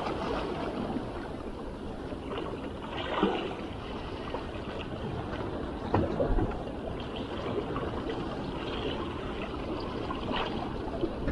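Small sea waves lapping against shoreline rocks, with now and then a louder splash.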